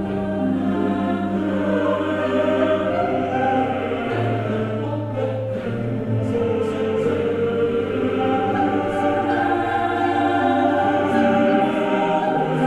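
Background music: a choir singing long sustained chords over a low bass note that fades out about eight seconds in.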